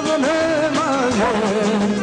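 Live Serbian folk-pop band music: an ornamented, wavering melody line over a steady sustained accompaniment.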